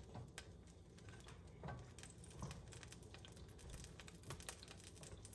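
Near silence with faint, scattered ticks and crackles from cooking oil warming in a nonstick frying pan dotted with water droplets.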